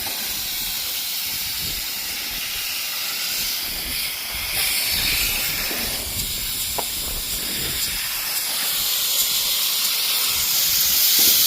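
Diluted coil cleaner being sprayed onto an air conditioner condenser's fins: a steady hiss of spray that grows louder near the end.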